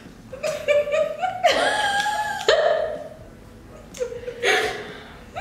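Women laughing and giggling in bursts, with a quieter stretch around the middle.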